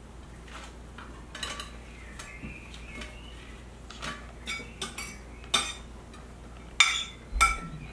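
Metal cutlery clinking against dishes: a string of light clinks, growing louder and more frequent, with the two loudest ringing briefly near the end.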